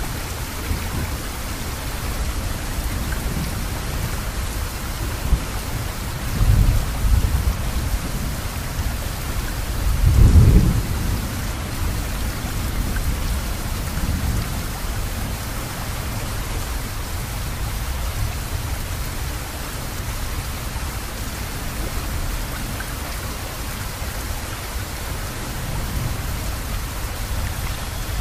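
Steady rain hiss with two short, low rumbles of thunder, about six and ten seconds in, the second the louder.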